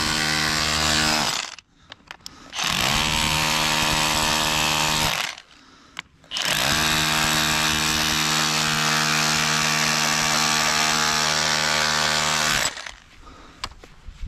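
Powered breaker hammer chiselling into rock and mortar in three runs: a short run, a pause, a run of about three seconds, another pause, then a longer run of about six seconds. The motor winds up at each start and winds down at each stop.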